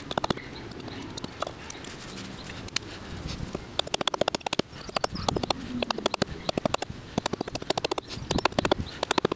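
Hultafors forest axe chopping into a sweet chestnut blank on a chopping block: short sharp strikes of the blade biting the wood as the mallet handle is shaped. The strikes are scattered at first, then come rapidly, several a second, from about four seconds in.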